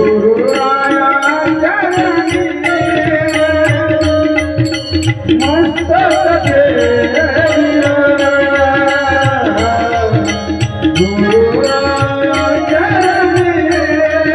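Marathi devotional kirtan singing: a voice holding long notes that slide up and down, over drum and percussion accompaniment with a steady, regular beat.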